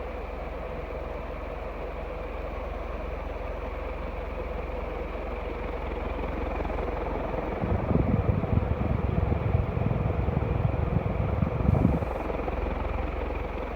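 Restored Union 56-inch ceiling fan with a cast-iron motor running at full speed: a steady motor hum with the rush of moving air. From about eight to twelve seconds in, a louder low rumble of the fan's air buffeting the microphone is added.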